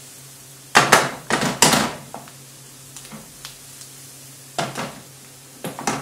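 Wooden spoon stirring diced onions and carrots in a frying pan. There is a cluster of loud scraping strokes about a second in and two shorter ones near the end, over the low sizzle of the vegetables frying in oil.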